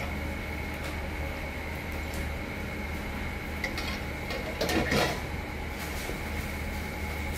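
Steady background hum with a faint high whine. About five seconds in comes a brief clatter and rustle of rubber-gloved hands going into boiled glass noodles in a stainless steel mixing bowl.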